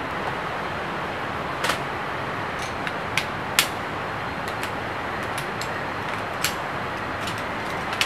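Sharp light clicks of aluminium camp-chair poles snapping into the frame's hub as it is assembled: about half a dozen scattered clicks, the loudest about three and a half seconds in. Underneath is a steady rushing noise.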